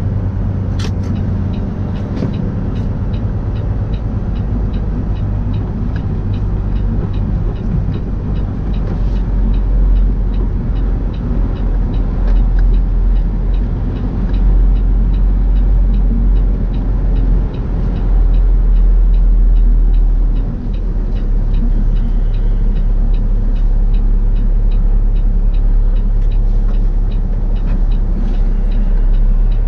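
Semi-truck diesel engine running as the truck pulls slowly through a lot, a steady low rumble heard from inside the cab that grows louder about nine seconds in and again around the middle. Faint, regular ticking runs underneath throughout.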